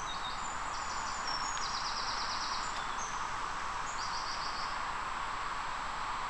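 A small songbird sings a string of short, high, rapid trills over the first four seconds or so, above a steady rushing background noise.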